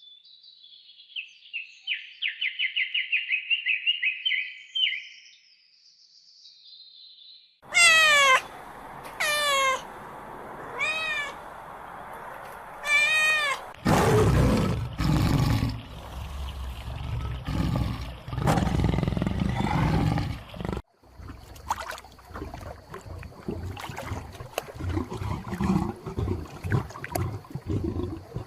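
A run of different animal calls, one after another: first a rapid high trill, then about four pitched calls that fall in pitch, then lower, rougher calls and a busier mix of sounds.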